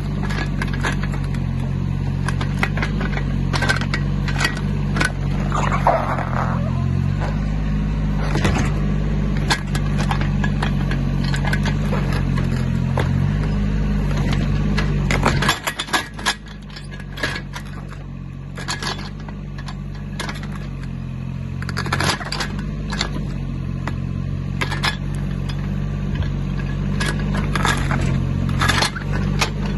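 Yanmar B14 mini excavator's diesel engine running under hydraulic load while its root-ripper tine tears through a birch stump's roots and soil, with repeated cracking, scraping and knocking of wood and dirt. About halfway through the engine note drops sharply, then gradually builds back up.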